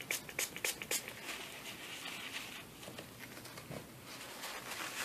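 Hand spray bottle spritzing water about four times in quick succession, then a softer scrubbing hiss of the damp glue squeeze-out being wiped off the guitar's finish.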